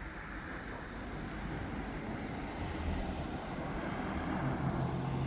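Jet airliner engine noise from a descending Ryanair jet: a steady rushing sound that grows slowly louder, with a low steady hum coming in near the end.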